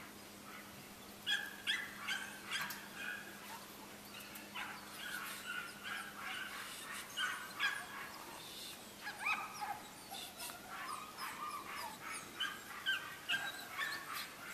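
Seven-week-old German Shepherd puppies whining and yipping, many short high-pitched calls overlapping, starting about a second in.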